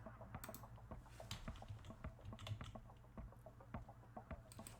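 Faint, irregular clicking of computer keys over a low steady hum.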